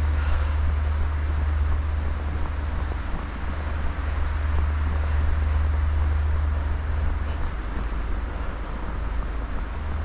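Storm wind buffeting the microphone: a steady low rumble with an even hiss over it.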